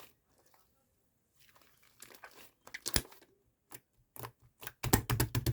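Slime covered in fluffy shaving foam being squished and pulled by hand: sticky crackling and popping, sparse at first, then a quick run of loud pops near the end.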